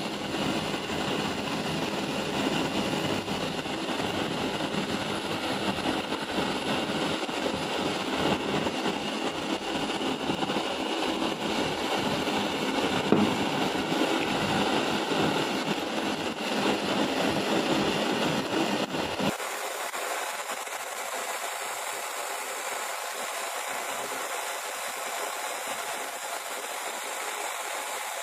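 Steady rushing, hissing noise with a low rumble. About nineteen seconds in it changes abruptly to a thinner hiss without the rumble.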